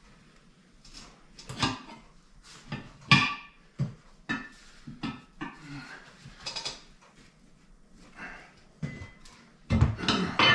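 Tire irons clanking and scraping against a wheel rim as a new tire's bead is levered on by hand: irregular metal knocks, with a sharp clank about three seconds in and heavier ones near the end.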